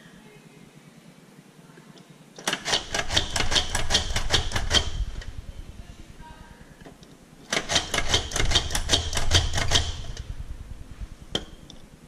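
A handheld stainless-steel drawing device running against paper in two bursts of about two and a half seconds each: a rapid rattle of clicks, about six or seven a second, over a low hum. A single sharp click near the end.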